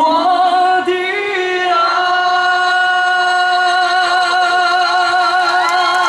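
A male voice singing a cappella into a microphone: a short phrase, then from about two seconds in a long held final note with steady vibrato.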